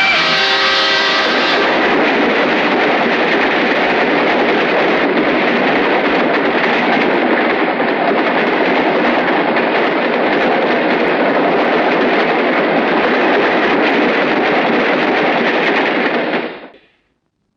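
Loud, steady rushing noise on a film soundtrack. It opens with a brief pitched, many-toned wail and cuts off abruptly about sixteen and a half seconds in.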